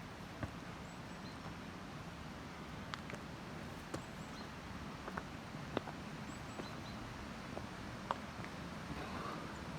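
About half a dozen scattered sharp taps, a second or more apart, of a hiker's steps or stick on a rocky trail, over a steady outdoor hiss.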